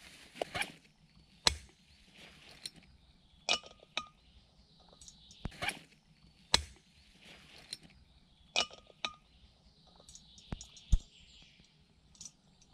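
Sharp metallic clicks and clinks every second or two, a couple ringing briefly, from a camping gas stove, its gas canister and a moka pot being handled and set down, with rustling from digging in a backpack between them.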